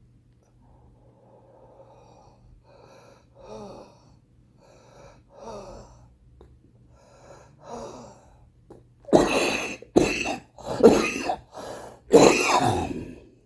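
A smoker's wheezy, laboured breathing, a faint breath every second or so, then a fit of four or five loud coughs about nine seconds in. It is the chest wheeze and cough of a heavy cigarette smoker.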